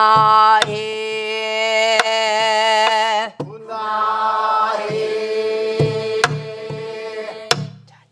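Two women singing a Korean Namdo folk song in unison, with long held notes that waver. They sing two phrases with a short break about three seconds in. A buk barrel drum accompanies them with sharp strokes and low thumps, and a sharp stroke closes the second phrase.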